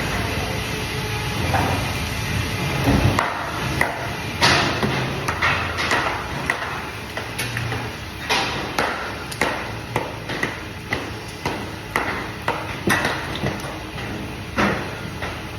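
Fish-cutting work: sharp knocks repeating about twice a second, over a low machine hum that fades about three seconds in.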